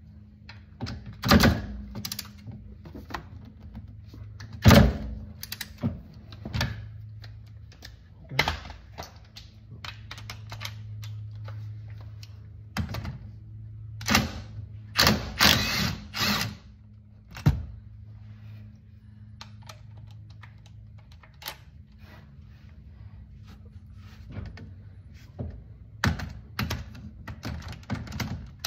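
Work on a car's driveshaft flange bolts: scattered metal knocks and clicks of tools, the loudest about one and five seconds in, with a cordless power wrench on the bolts running in short spells, and a low steady hum for a few seconds near the middle.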